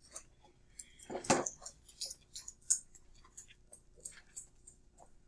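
Dry-erase marker tapping and dragging on a whiteboard as a dashed line is drawn: a string of short, sharp strokes, about three a second, with one louder sound about a second in.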